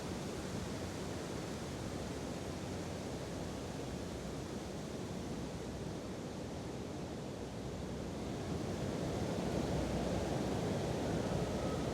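Wind blowing steadily, a low rushing noise that swells a little louder about eight seconds in.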